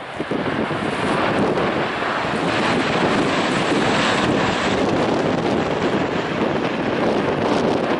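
MC-130 tanker's four turboprops and CV-22 Osprey tiltrotor flying past together, a steady broad engine rumble that builds slightly in the first second, mixed with wind buffeting the microphone.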